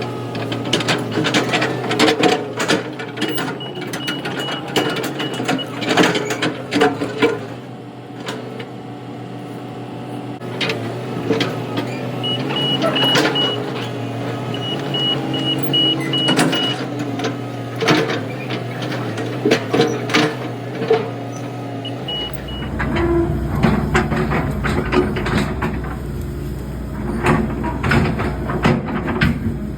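A machine engine running steadily with many knocks and clanks over it. A high, rapid beeping sounds in short runs several times, and the engine's note drops deeper a little over two-thirds of the way through.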